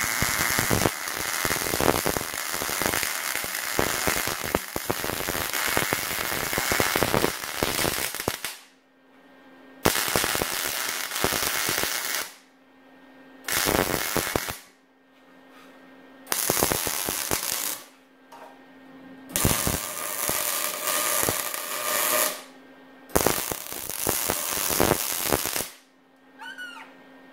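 Electric arc welding on steel: a steady crackling sizzle, the fast-frying-bacon sound of a well-set arc. One long bead of about eight seconds, then five shorter ones with pauses between, where a low steady hum is left; a few short squeaky chirps near the end.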